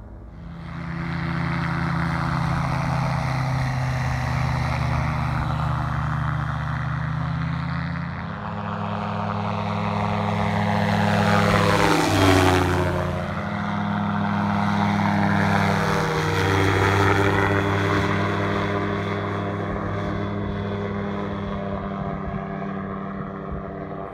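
Dragonfly ultralight tug plane's engine and propeller droning steadily. It swells in a low, close pass about halfway through, with the pitch falling as it goes by.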